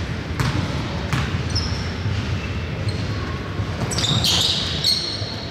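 A basketball bouncing on the court a few times, with short high sneaker squeaks about a second and a half in and again near the end.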